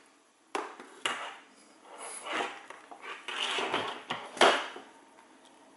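Handling noise of a plastic radio transmitter and a box-style FPV goggle headset being lifted off a foam head and put down on a desk: scattered clicks and knocks with rustling of the headset's fabric straps, and a louder knock about four and a half seconds in.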